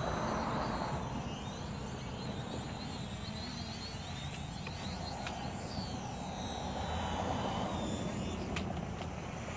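Quadcopter drone's brushless motors and propellers buzzing in the air, heard from the ground, swelling and easing as the drone moves about.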